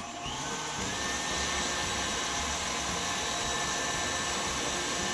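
Electric tilt-head stand mixer restarting and whipping heavy cream with its wire whisk. The motor whine rises in pitch as it spins up in the first second, then runs steady. The cream is just short of soft peaks.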